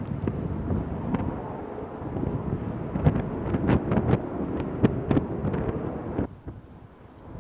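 Fighter jet's engine roaring on takeoff and climb-out, mixed with wind buffeting the microphone and irregular crackles. The roar drops away sharply about six seconds in as the jet recedes.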